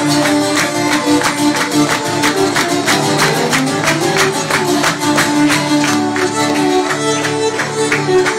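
Live Eastern European folk tune in klezmer style on violin and acoustic guitar: the fiddle plays the melody in held notes, with a rising slide about three seconds in, over steady rhythmic strummed guitar chords.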